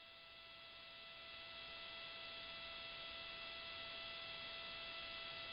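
Faint, steady electrical hum and hiss on an open broadcast audio line: a constant whine made of several tones over a hiss, growing a little louder over the first two seconds.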